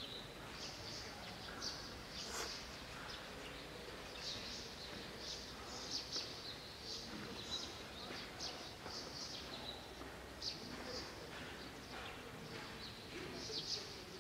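Faint background ambience with small birds chirping in short, high calls, scattered every half second to a second, and one sharp click about two seconds in.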